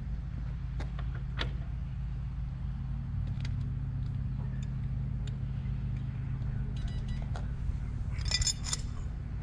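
A steady low hum with a few light clicks and clinks, then a short bright metallic jangle of keys about eight seconds in.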